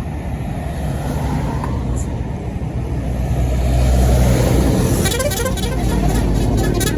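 Tour bus engine running loudly as the bus pulls by, rising to its loudest about four seconds in. Shortly after, a multi-tone basuri telolet horn starts playing a quick run of musical notes.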